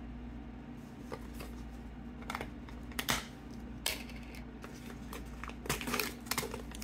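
A Pringles can being opened by hand: the plastic lid coming off and the foil seal being peeled, a scattering of small clicks and crinkles, busiest near the end.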